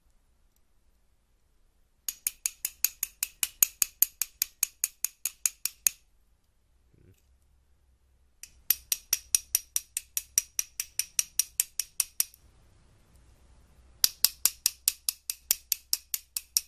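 A wrench rapidly smacking a small combination lock to knock it open, giving three runs of sharp metal-on-metal taps, about five a second, with short pauses between the runs.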